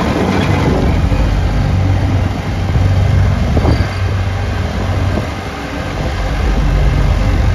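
Valtra tractor running while its front-mounted set of three hydraulic vibrating plate compactors shakes against a gravel track to compact it: a loud, steady low hum under a dense rattle of the plates and gravel.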